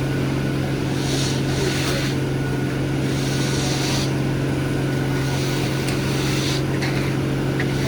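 Heavy diesel engine of a concrete boom pump truck running steadily at high revs, with a hissing surge every second or two as it pumps.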